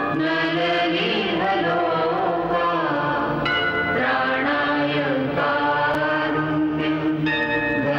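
Music with chanted vocals over sustained instrumental backing.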